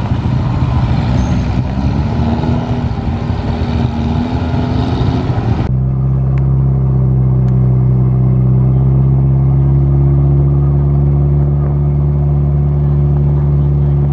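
Motorbike engines running and people talking at a riverbank ferry landing; about six seconds in it changes abruptly to a narrow wooden river boat's engine running loud and steady at cruising speed, with water rushing past the hull.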